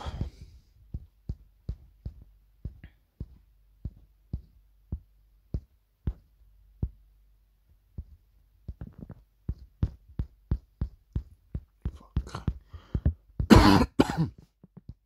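A run of short, sharp clicks or taps at an uneven pace, roughly two a second, with a pause in the middle. Near the end come two louder, noisy bursts about half a second long.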